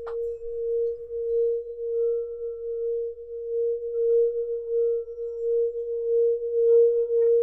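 A single sustained ringing tone that wavers in loudness. Fainter, higher tones join it about four seconds in: an ambient drone used as a background bed.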